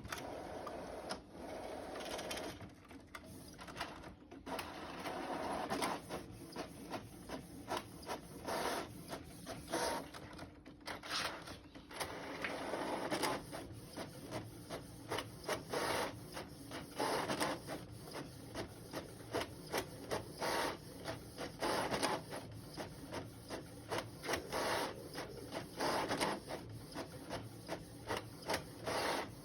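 A printer running, its mechanism working in a series of short whirring passes and clicks that repeat about every second.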